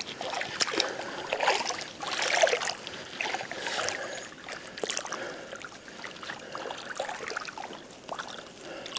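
Rummaging: irregular rustling and clattering of objects being handled and shifted about, with scattered sharp clicks.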